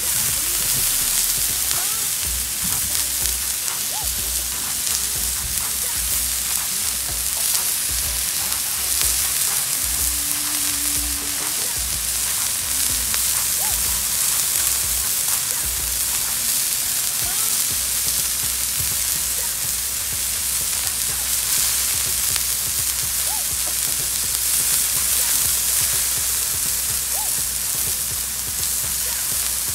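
Raw hamburger patties sizzling on a Blackstone flat-top griddle: a steady frying hiss with small scattered pops and crackles.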